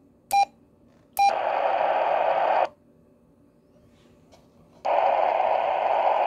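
President Walker II CB radio clicking through channels: a short beep at each channel change, with bursts of receiver static from its speaker between them. One burst runs about a second and a half and cuts off abruptly; the next starts near the end.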